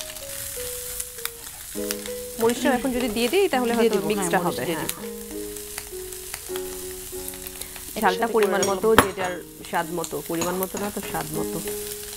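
Scrambled egg and chopped onion sizzling in hot oil in a wok, with a wooden spatula stirring and clicking against the pan. Background music plays underneath.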